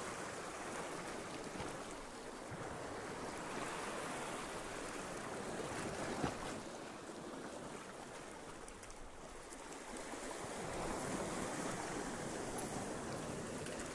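Sea waves breaking and washing against rocks, the surge swelling and easing every few seconds. One sharp click sounds about six seconds in.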